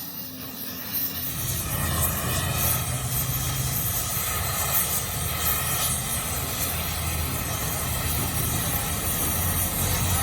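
Steady mechanical running noise with a low hum under a broad hiss, starting about a second in.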